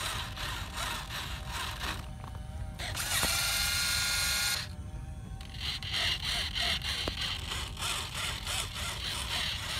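Electric servo whine from the Freewing F-15 RC jet as its airbrake or control surfaces move: a buzzing whine of about a second and a half a few seconds in, among faint clicks.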